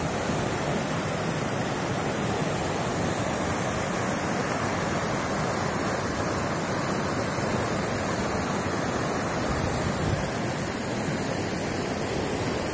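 Fast mountain river rushing over boulders and carrying slush ice: a steady, even rushing of water.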